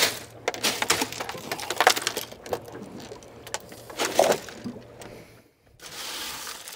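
Crushed ice crunching and rattling in a boat's fish box as a spotted seatrout is pushed into it and flops on the ice, heard as a run of sharp clicks and crunches. A little after five seconds in it drops out briefly and gives way to a steady hiss.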